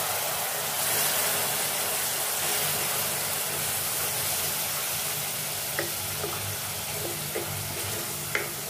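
Spice masala frying and sizzling in oil with a splash of water in a pressure cooker pot, stirred and scraped with a wooden spoon. From a little past halfway, several light knocks of the spoon against the pot.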